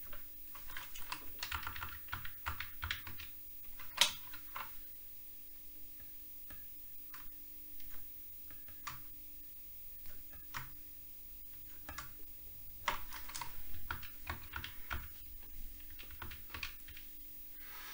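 Irregular light clicks and taps from working a light pen and a home-computer keyboard, bunched in two flurries, one near the start and one about two-thirds through, with a single sharper click about four seconds in.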